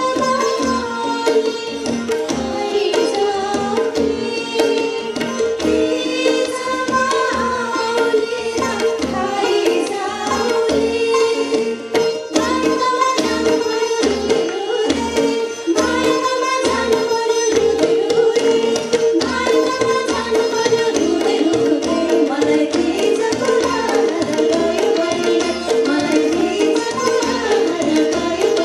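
Live Nepali song: a woman singing with tabla, sitar, harmonium and acoustic guitar accompaniment, the tabla keeping a steady beat.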